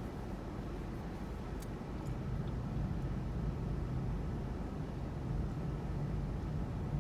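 Low rumble of distant thunder rolling, swelling about two seconds in and holding, with a few faint ticks early on.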